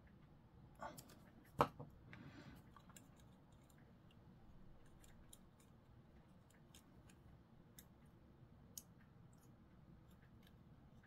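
Faint clicks and taps of plastic model-kit parts being handled and pressed together, with one sharper click about one and a half seconds in.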